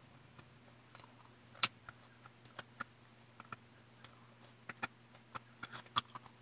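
Quiet, scattered clicks and smacks of someone eating with their fingers: chewing and picking food off a plate, with the strongest clicks about one and a half seconds in and near the end.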